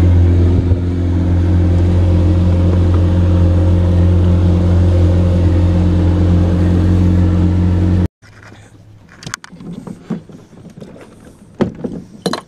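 Boat's outboard motor running steadily at speed, loud and even, while the boat is under way. It cuts off abruptly about eight seconds in, leaving much quieter sounds with a few sharp knocks.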